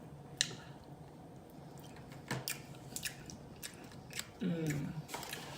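Close-up eating sounds: chewing with wet smacking and sharp mouth clicks, and a short hummed "mm" near the end.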